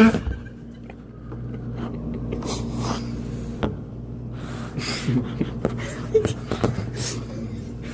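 Steady low hum of laundromat machines running, with scattered small clicks and rustles and a few breathy sounds. A short loud sound comes right at the start.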